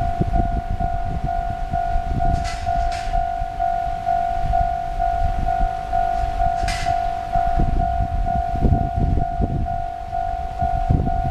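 Japanese railway level-crossing alarm ringing its electronic bell tone, repeating about three times a second: the warning that a train is approaching and the crossing is closed. An irregular low rumble runs underneath.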